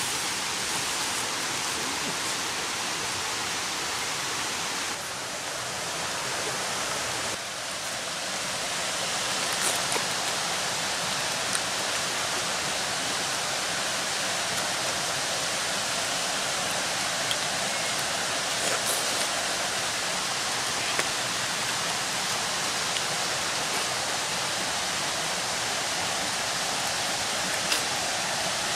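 Steady rushing of a forest stream, with a few faint clicks over it.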